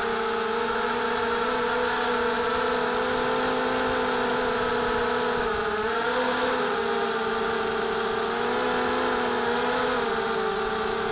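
Mini FPV racing quadcopter's electric motors and propellers whining steadily, several tones together, wavering slightly in pitch a couple of times, heard through the camera mounted on the quad.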